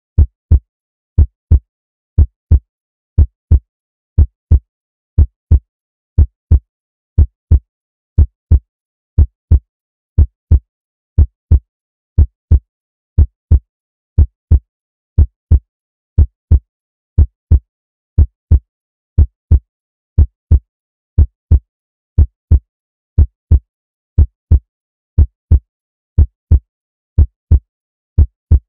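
Heartbeat sound effect: evenly paired deep thumps, lub-dub, repeating steadily at about one beat a second.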